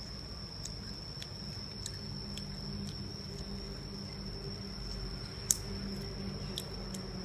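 Close-up chewing and biting on a steamed chicken foot, its tendons and skin crunchy, with small crackling clicks and one sharp crack about five and a half seconds in. A steady high-pitched whine and a low hum run underneath.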